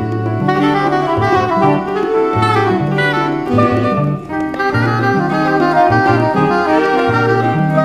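Latin jazz band playing, a saxophone carrying the melody over a walking acoustic bass line.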